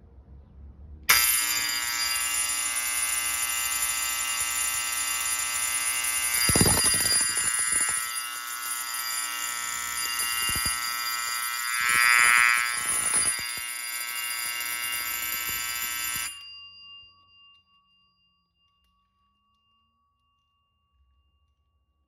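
Electric fire alarm bell ringing loudly and continuously. It cuts in suddenly about a second in and is switched off about 16 seconds in, after which its gong rings out for a few seconds. A few knocks come in the middle.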